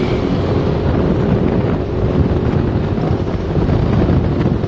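Wind buffeting the microphone over the steady drone of a moving vehicle.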